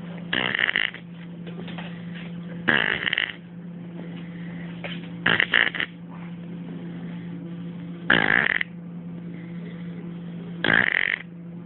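Snoring: five loud, rasping snores, one roughly every two and a half seconds, each about half a second long, over a steady low hum.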